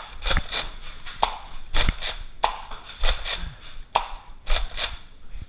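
Nerf blasters firing foam balls, with the balls striking walls and furniture: about a dozen sharp pops and thwacks at irregular intervals, some in quick pairs.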